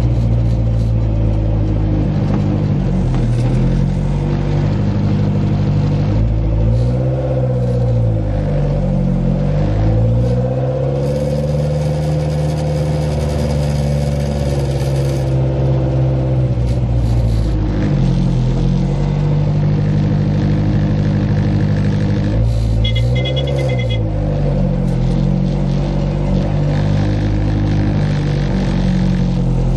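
A Fiat 126 race car's 1,300 cc engine heard from inside the cabin, running loudly as it drives in traffic. Its pitch drops and climbs again several times as the revs fall and rise with the throttle and gear changes.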